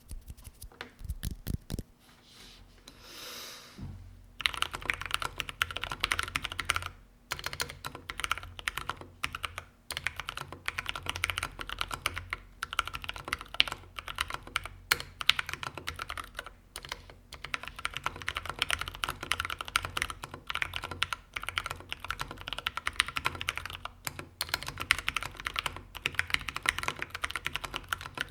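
Typing on a Gothic50 custom mechanical keyboard with lubed and filmed Durock T1 tactile switches and plate foam: a fast, steady stream of keystrokes that starts about four seconds in, with a few short pauses.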